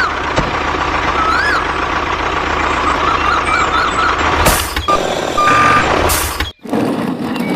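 Truck-like engine noise with short warbling electronic beeps over it, like a vehicle's reversing alarm. It cuts off abruptly about six and a half seconds in.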